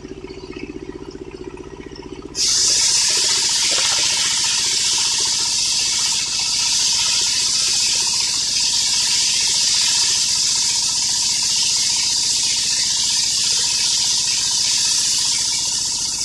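Engine-driven homemade circular sawmill idling, then about two seconds in the blade starts cutting through an old coconut-palm log with a loud, steady high hiss that holds for about fourteen seconds before the mill drops back to idle at the end.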